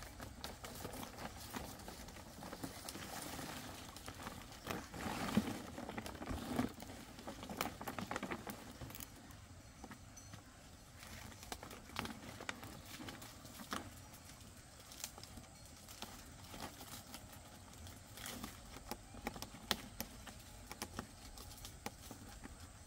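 Large fan-palm leaves rustling and scraping as they are handled and moved, with scattered light knocks and clicks; busiest in the first half, fainter after that.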